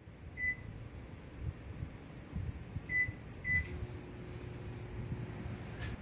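Three short, high electronic beeps, the last two close together, and just after them a steady low hum starts, over a constant low rumble of room noise; a sharp click near the end.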